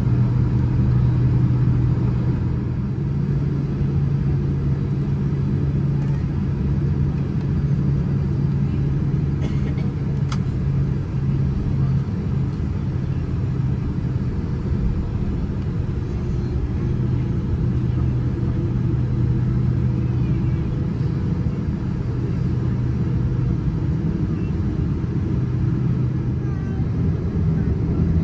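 Boeing 787-10 airliner taxiing, heard inside the cabin at a window seat over the wing: a steady low rumble of engines at taxi power and cabin noise, with a steady low hum running through it.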